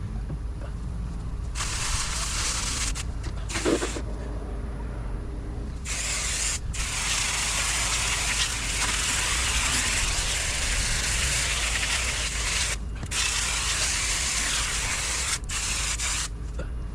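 Water spraying from a hose nozzle onto a bike, a hiss that starts and stops several times with short breaks.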